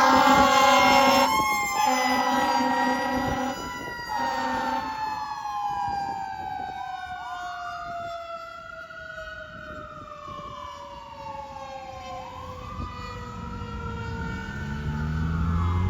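Fire engine responding with its air horn and sirens: the air horn blasts three times over the first five seconds while the sirens wail. One siren tone winds slowly down in pitch as another keeps sweeping up and down, fading through the middle and growing louder again near the end.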